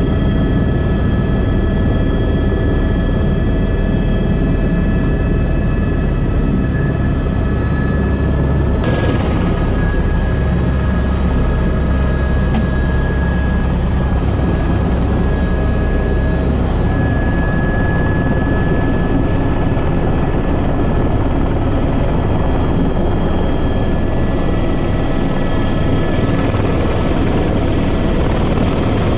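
Airbus H125 (AS350 B3) helicopter running steadily, heard from the cockpit: a loud low drone from the main rotor and single turboshaft engine, with several steady high whine tones on top. The high hiss grows brighter about nine seconds in.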